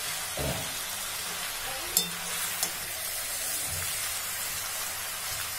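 Chopped chicken with onions and red chillies sizzling in a hot kadai as a spatula stirs and tosses it. A steady frying hiss runs under the stirring, with a sharp tap of the spatula on the pan about two seconds in.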